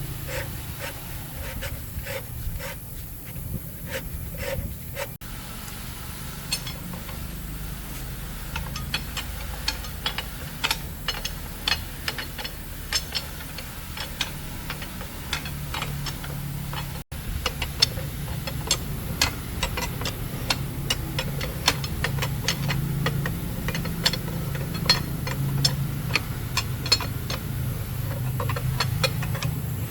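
Workshop tool work: many sharp clicks and taps, with some rubbing, over a steady low hum. The taps grow louder and more frequent in the second half.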